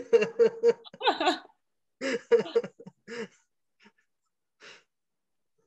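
People laughing over a video call in several bursts of short, quick 'ha' pulses. The laughter dies away after about three seconds, leaving only a faint breath or two.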